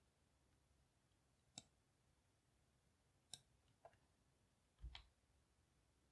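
Near silence with four faint, sharp clicks from working the computer; the last comes with a soft low thump.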